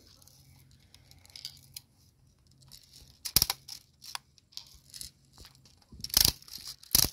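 Handling noise from a plastic air-rifle magazine with a BB quick loader fitted over its opening: scattered sharp plastic clicks and light rattles, with a strong click about three and a half seconds in and the loudest clicks near the end.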